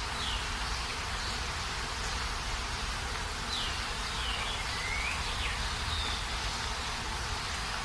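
Forest ambience: a steady hiss over a low rumble, with a few short bird chirps, most of them sliding down in pitch, at the start and again between about three and a half and six seconds in.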